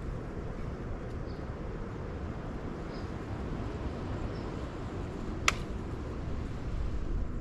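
Steady low rumbling outdoor noise, with one sharp click about five and a half seconds in.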